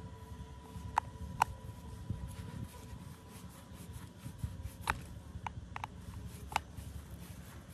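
Steel screwdriver tip scraping and picking caked oily grime off the bar-mount pad of an old Husqvarna chainsaw. There are about six sharp metal clicks as the tip strikes the casting, the loudest two at about one second and just after.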